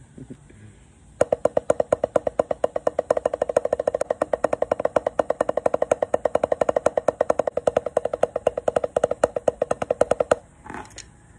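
Drumsticks playing a fast, even run of strokes on an Evans RealFeel rubber practice pad, starting about a second in and stopping abruptly near the end. A couple of faint taps come just before the run.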